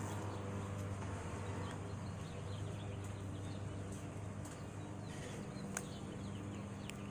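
Outdoor ambience: a steady low hum with faint, scattered bird chirps and a single sharp click about six seconds in.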